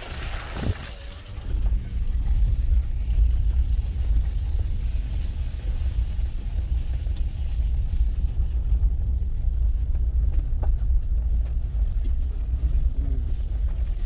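Low, steady rumble of a vehicle driving slowly along a rough, muddy dirt track: engine and tyre noise, swelling about a second and a half in.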